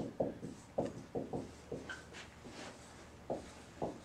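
Dry-erase marker writing on a whiteboard: a series of short, separate strokes and scrapes of the felt tip against the board as a word is written out.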